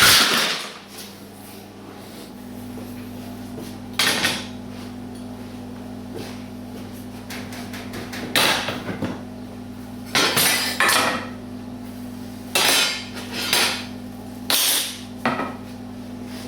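Irregular metallic clanks and knocks, like tools and metal parts being handled and set down on a workbench, about nine in all with gaps of a second or more, over a steady low electrical hum.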